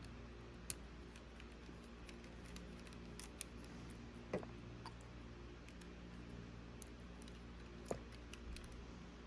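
Faint, scattered small clicks of a tiny screwdriver and small metal parts as tiny screws are undone inside a cassette Walkman, over a steady low hum.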